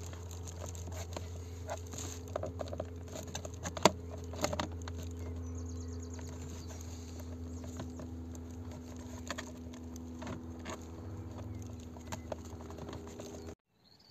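Plastic steering-column trim being handled and pushed into place: scattered light clicks and knocks, the sharpest about four seconds in, over a steady low hum. Everything cuts off abruptly near the end.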